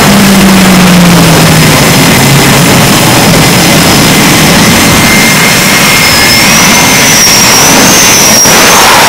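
Jet engine noise from an EA-6B Prowler's turbojets as it comes in to land on a carrier. A low tone falls during the first two seconds, and in the second half a high whine wavers and rises.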